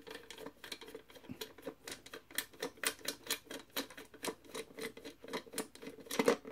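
Phillips screwdriver backing the centre screw out of a Carousel gumball machine bank's metal base, with a quick run of small clicks, about three or four a second.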